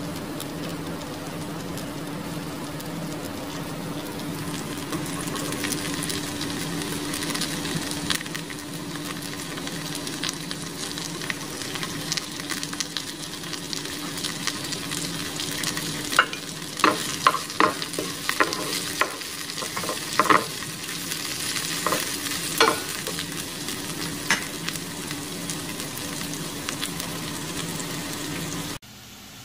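Watermelon rind strips, garlic and chilli peppers sizzling in oil in a frying pan, over a steady low hum. From about halfway, a run of sharp knocks as a utensil stirs against the pan. The sound cuts off just before the end.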